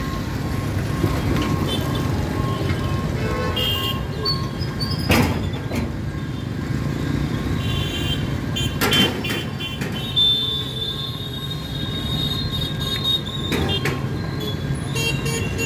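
Road traffic at a railway level crossing: a steady engine rumble from auto-rickshaws and motorbikes, with two sharp knocks about five and nine seconds in and a high steady tone for a few seconds near the middle.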